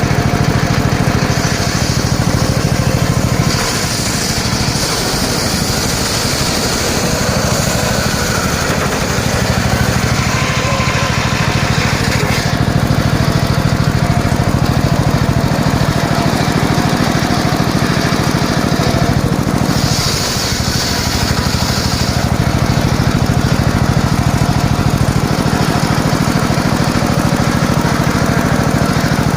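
Engine-driven mobile circular sawmill running steadily while sawing teak. A high hiss comes and goes a few times over the steady engine drone.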